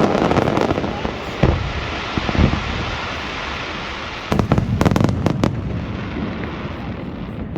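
Aerial fireworks going off over a continuous crackle. Two deep booms come in the first two and a half seconds, then a quick cluster of sharp cracks and bangs around four to five and a half seconds in, and the noise fades near the end.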